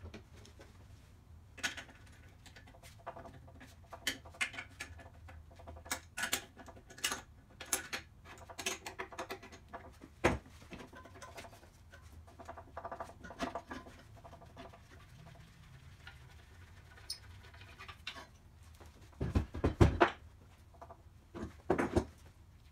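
Scattered clicks, taps and scrapes of tools and metal parts as an electric motor is unbolted from its mount on an old cast-iron drill press. A few heavy thuds come about three quarters of the way through, the loudest sounds here, with another near the end.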